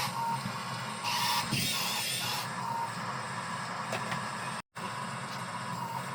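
Small electric motors and gearboxes of a radio-controlled model bulldozer running, with a louder, wavering whir for just over a second about a second in.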